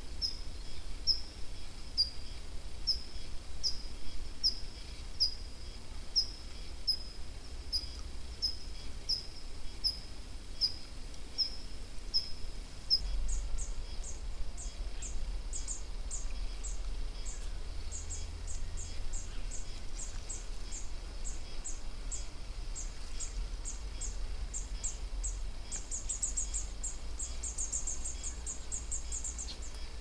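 Short high calls repeated about twice a second. About 13 s in they give way to a higher, faster series of ticking notes that grows denser near the end. A low, steady rumble runs underneath.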